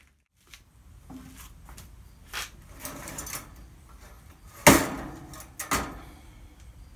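Metal parts of an electric winch knocking and scraping as the cable drum is worked off the winch. The loudest knock comes a little past the middle, with another about a second later.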